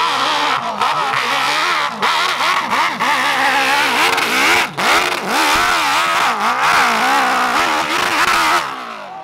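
Enduro dirt bike engine revving hard under load on a steep grass hill climb, its pitch swinging up and down again and again with brief dips as the throttle is worked. The engine sound falls away suddenly shortly before the end.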